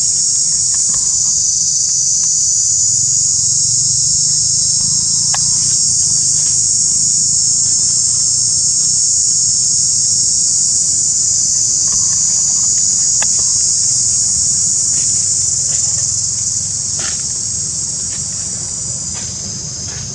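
Steady, high-pitched chorus of insects, with a few faint ticks scattered through it; the chorus grows softer in the last few seconds.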